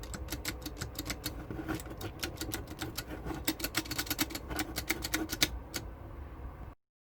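Keys of a home-built mechanical keyboard with Cherry MX-style switches being pressed in quick, irregular succession, each giving a sharp clack. The typing stops abruptly near the end.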